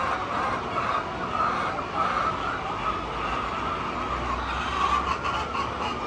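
A large flock of chickens calling together, many overlapping clucks and cackles merging into a steady wavering chorus, with a few short clicks near the end.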